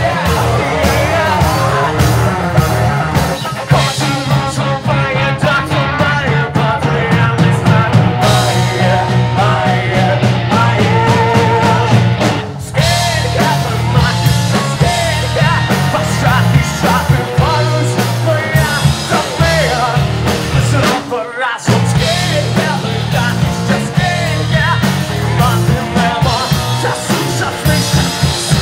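Rock band playing a song: drum kit, bass and electric guitar with a sung melody over them. The whole band stops for a split second about three-quarters of the way through, then comes back in.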